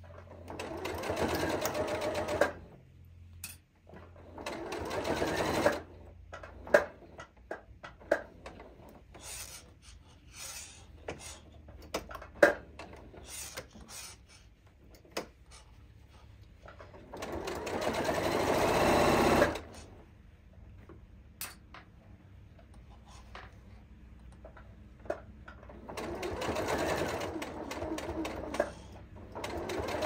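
Janome sewing machine stitching a seam in four short runs of two to three seconds each. Between the runs it stops while the fabric is handled, with a few sharp clicks.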